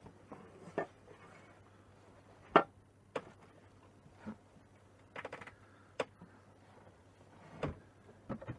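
Handling knocks of a cardboard whiskey gift box being pulled across a bench and picked up: a scattered series of short taps and bumps, one sharp knock a little over two seconds in and a quick cluster around five seconds, over a faint steady hum.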